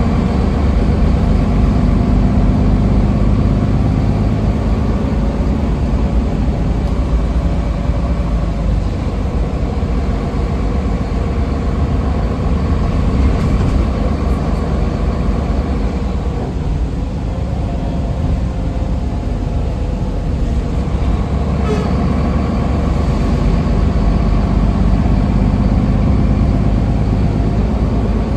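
Cabin noise of a Solaris Urbino III city bus under way: a steady low engine and road rumble with a faint whine that drifts up and down with speed. It eases briefly a little past the middle.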